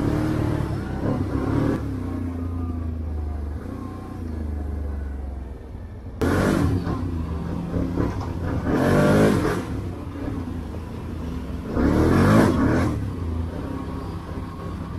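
ATV engine running at low trail speed, revved up briefly three times, about six, nine and twelve seconds in, each rev rising and then falling back.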